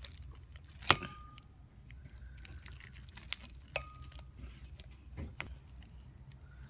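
Metal utensil scraping through soft dough and clinking against a metal bowl: a few sharp clinks, the loudest about a second in, two of them leaving a brief ring.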